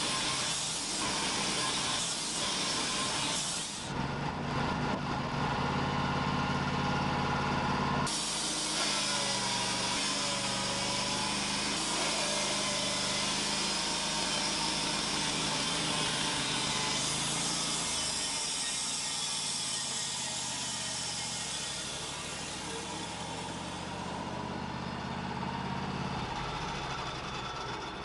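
Wood-Mizer portable band sawmill running, its engine going steadily while the band blade saws through a Western red cedar log, with a loud hiss of cutting. The sound shifts abruptly about 4 and 8 seconds in and eases a little near the end.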